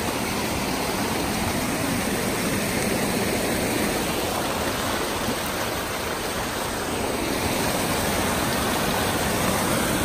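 Mountain stream rushing over rocks in a steady, unbroken wash of water noise.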